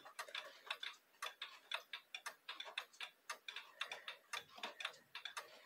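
Mechanical pendulum wall clock ticking faintly and evenly, the escapement of an Ergo coil-gong wall clock beating as its pendulum swings.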